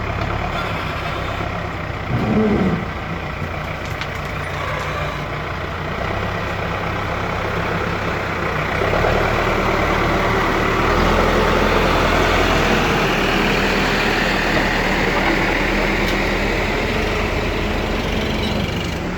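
Diesel engines of a backhoe loader and a dirt-loaded tractor running together, growing louder about halfway through. A brief louder wavering sound comes about two seconds in.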